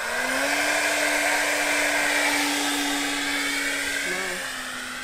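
Twin electric ducted-fan motors of a foam RC Boeing 737 model at full throttle for a hand launch. The pitch rises over the first half second, settles into a steady high whine as the plane climbs away, and eases off slightly near the end.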